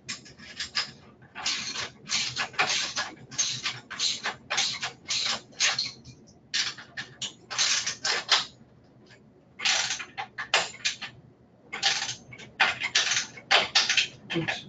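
Ratchet wrench clicking in short, repeated strokes as a caster is tightened onto the rear frame of a wheelchair, in runs with brief pauses between them.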